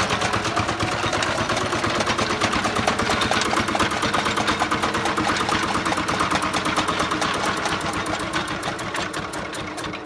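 Small diesel engine running fast with a rapid, even chugging, belt-driving a flywheel chaff cutter whose wheel and gears clatter along with it. The sound grows quieter near the end.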